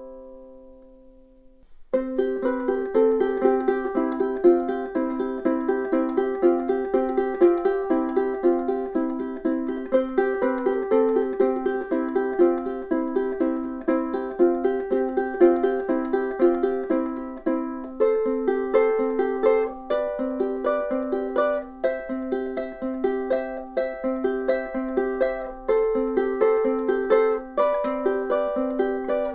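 All-solid koa concert ukulele by DJ Morgan, played fingerstyle. A last note rings out and fades to near silence, then picked notes over a repeated low note start about two seconds in and carry on steadily.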